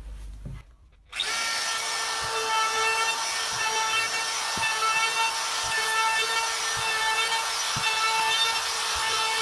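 DeWalt compact trim router running steadily with a whine, its quarter-round roundover bit with a bearing rounding over the edges of holes in a plywood tabletop. The router comes in suddenly about a second in.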